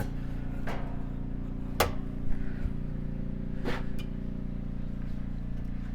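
A few short, sharp clicks and knocks over a steady low hum.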